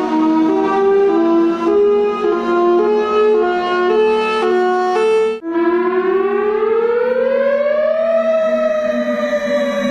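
Two warning sirens in turn. The first is a tone that jumps up and down between pitches about every half second over a steady low drone. After a sudden break about five and a half seconds in, an air-raid style siren wails up in pitch for nearly three seconds, then slowly falls.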